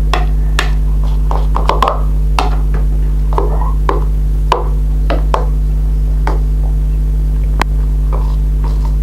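Steady electrical hum under irregular sharp clicks and short squelches of borax-activated slime being stirred and worked in a bowl, the clicks coming every half second to a second.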